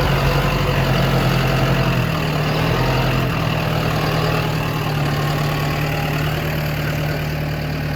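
Tractor engine running steadily at low speed, its note shifting slightly about two seconds in.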